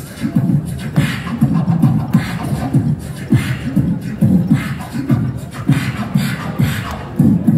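Beatbox rhythm through a PA system: deep kick-drum thumps and short hissing snare sounds in a steady hip-hop groove.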